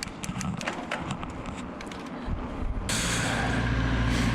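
Scattered light clicks and rattles, then from about three seconds in a sudden steady rushing and rumbling noise: a bicycle being ridden along a road, with wind on the microphone.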